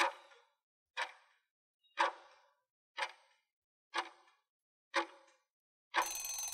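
Countdown-timer sound effect ticking once a second, six ticks in all. As the count reaches zero it gives way to a longer, noisier sound of under a second with a steady tone through it.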